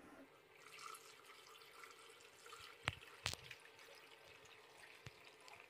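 Soy-sauce pickling brine poured from a stainless steel bowl over onions in a glass jar: a faint trickle, with a few light clicks.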